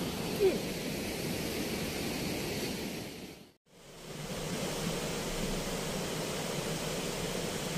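Steady rush of river water pouring through a barrage's sluice gates. The sound drops out for a moment just past halfway, then resumes unchanged.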